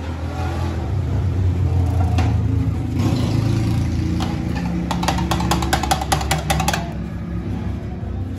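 A motor vehicle's engine running close by, a steady low hum whose pitch shifts partway through. About five seconds in comes a quick run of metal clinking from steel pots and utensils.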